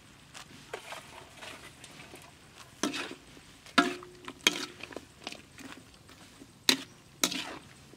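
A spatula stir-frying meat and vegetables in a metal wok: a light sizzle with several sharp knocks of the utensil against the pan, a few of them ringing briefly.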